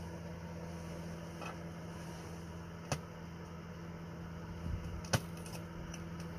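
A steady low hum runs throughout, with two sharp clicks, about three seconds in and about five seconds in.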